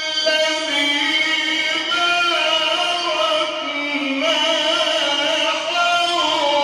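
A male Quran reciter chanting in the melodic mujawwad style, holding one long ornamented melisma whose pitch winds up and down without a break.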